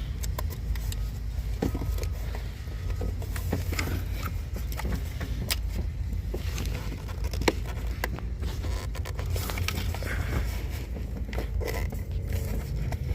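Hands working a tight plastic hose-connector clip on a purge valve assembly: irregular small plastic clicks, taps and scrapes over a steady low rumble.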